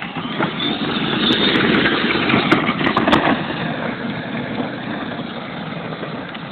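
Battery-powered ride-on toy jeep running on 24 volts, driving over asphalt with a steady rolling rumble and a few sharp clicks. The noise is loudest a second or two in and fades as it moves away.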